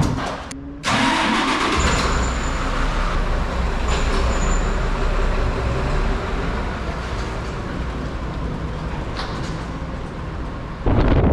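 An engine running steadily with a low rumble, after a few sharp knocks at the start; the sound changes abruptly near the end.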